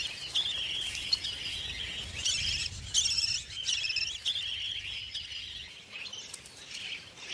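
Budgerigars chirping: a steady run of short, high warbling calls, one after another.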